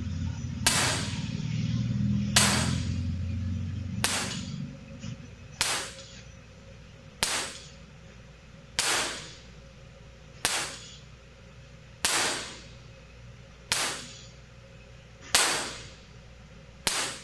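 Sharp single claps, about one every second and a half (eleven in all), each followed by the room's short ringing decay. They are used to show how the room reverberates to an impulse.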